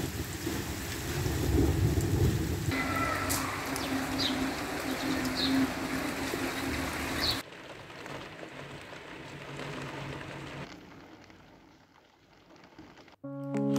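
Steady rain falling, an even patter of drops. It drops in level about halfway through and grows fainter toward the end.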